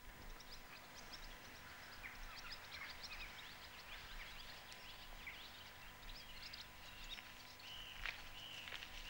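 Faint birdsong: small birds chirping and twittering in quick, high notes, with a run of short repeated calls near the end.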